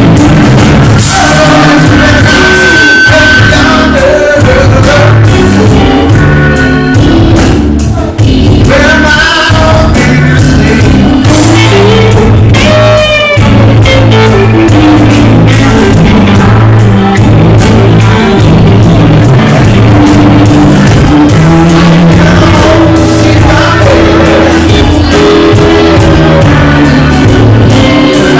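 Live rock band playing loud: a singer over electric guitar, keyboard and drum kit, with a brief drop in the music about eight seconds in.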